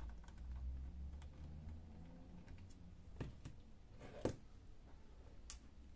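Faint clicks and taps of a small screwdriver and plastic laptop display parts being handled during disassembly, with one sharper tap about four seconds in and a lighter one near the end.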